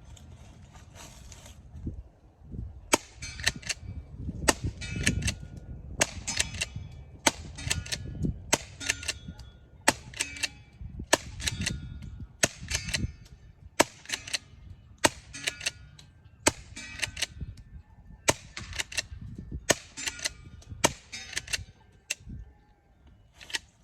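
Savage Model 29B pump-action .22 rifle firing a string of 710 fps subsonic .22 long rifle rounds, about one shot every second and a half from about three seconds in. Each sharp crack is followed by the quick clacks of the pump being worked to chamber the next round.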